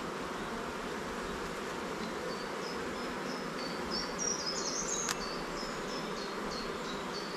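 Honeybees buzzing in a steady, dense hum around an opened hive under inspection. A series of short high chirps runs through the second half, and a single sharp click comes about five seconds in.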